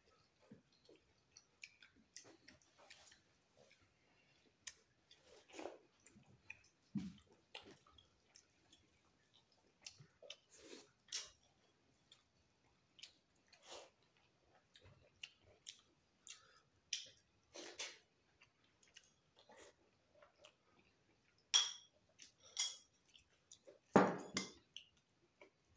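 Close-up eating sounds: chewing and smacking of rice and chicken curry eaten by hand, with scattered soft clicks. A louder knock near the end.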